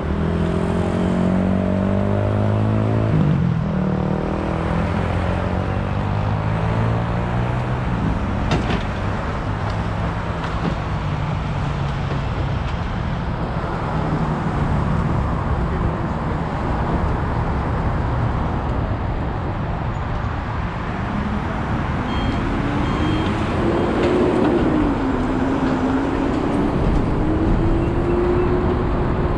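Heavy rotator tow truck's diesel engine running under load while its hydraulic boom and winch lift and roll an overturned utility truck back onto its wheels. The engine note shifts in pitch early on and rises and falls again near the end, with a sharp metal clank about nine seconds in.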